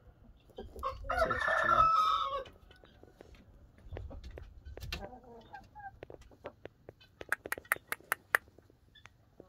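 A rooster crows once, a short crow starting about a second in, then gives a few softer clucking calls. Near the end there is a quick run of sharp clicks.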